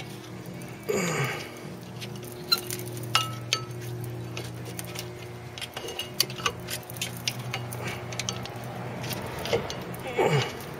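Steel brake pad and screwdriver clinking and knocking against the front brake caliper carrier of a Ford Fiesta Mk7 as the inner pad is levered out, many small metal clicks with two longer, louder noises falling in pitch, about a second in and near the end.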